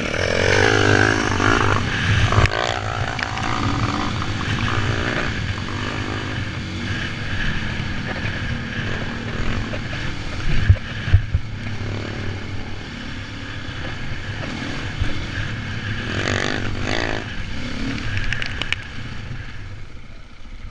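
Dirt bike engine running hard and revving up and down as it climbs a rough, rocky track, with two sharp knocks about ten seconds in. The engine note dies away near the end.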